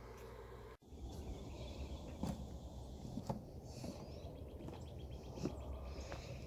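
Outdoor farmyard ambience: a low steady rumble with a few faint bird chirps and occasional soft knocks. It follows a brief dropout about a second in.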